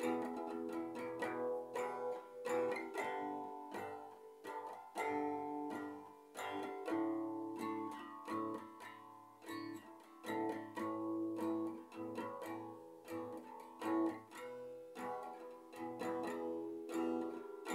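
Steel-string acoustic guitar played alone, chords struck several times a second and left ringing, with no voice.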